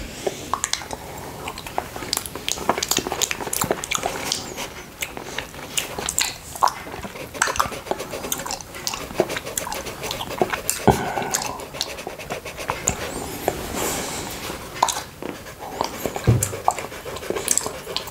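Close-miked tongue licking sticky honey off a small glass plate: a continual run of wet licks, smacks and mouth clicks.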